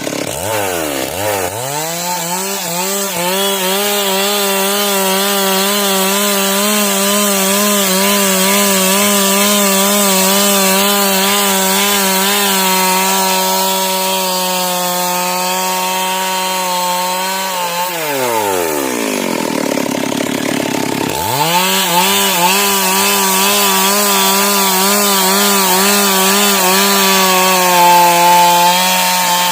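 Chainsaw ripping a log lengthwise along the grain, its engine held at high revs under load. About 18 seconds in the revs drop away for a few seconds, then it revs up again and cuts on.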